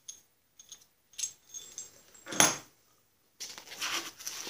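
Small metal clinks as a loose bolt and kit parts are handled, with one louder burst of handling noise about halfway through. Near the end, rustling of foam packing material as hands dig into the box.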